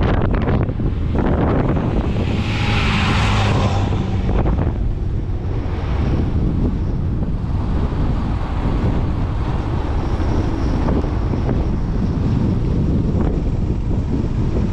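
Strong wind buffeting the microphone over the steady rumble of a moving vehicle. A louder hissing gust swells about two seconds in and fades about two seconds later.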